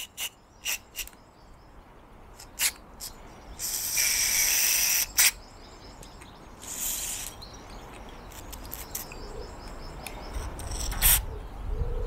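Aerosol carburettor cleaner sprayed into a small two-stroke carburettor's jets: a hiss of about a second and a half about four seconds in, then a shorter one near seven seconds, among light clicks and taps of the can and carburettor being handled.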